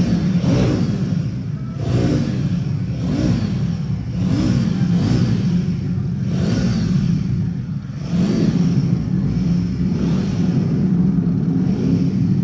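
Royal Enfield Himalayan 450's single-cylinder engine running, the throttle blipped in short revs about every second or so, then held steadier from about eight seconds in.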